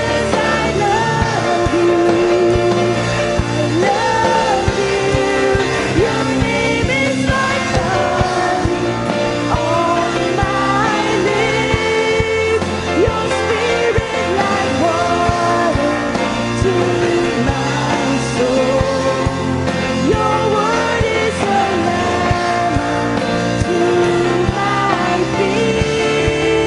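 Worship band playing a song, with singing over a steady bass line.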